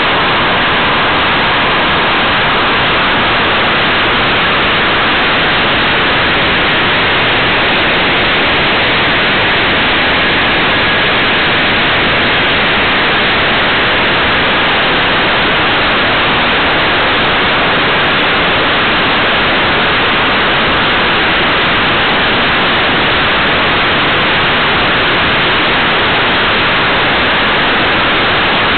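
Steady, loud rushing hiss of air streaming past a small onboard camera on a radio-controlled model glider in flight, with no motor heard.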